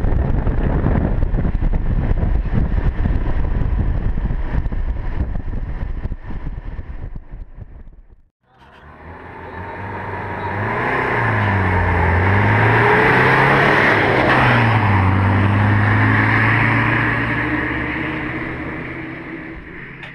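Off-road vehicle engine and wind noise, recorded on a moving 4x4 as it drives along. Then an off-road 4x4 drives past on a dirt track: its engine revs rise and fall several times, it grows loud about halfway through and fades away near the end.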